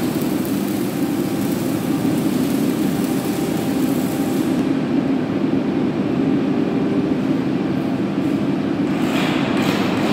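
A machine running steadily with a continuous low rumble. A high hiss over it drops away about four and a half seconds in, and a brighter noise comes back near the end.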